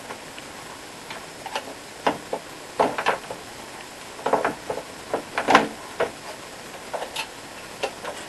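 Irregular clicks and light knocks of the Yamaha Genos keyboard's plastic parts being handled, the loudest about five and a half seconds in.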